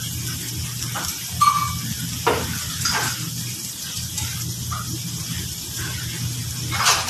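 Butter melting and sizzling in oil in a frying pan. A slotted metal spatula stirs it, scraping and clicking against the pan several times.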